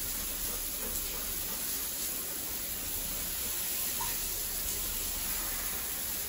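Handheld bidet sprayer jetting water onto a tiled bathroom floor to rinse it: a steady hiss of spraying water.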